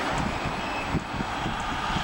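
Heavy construction machinery running: a steady, dense engine and mechanical noise with a low rumble underneath, dipping briefly about halfway through.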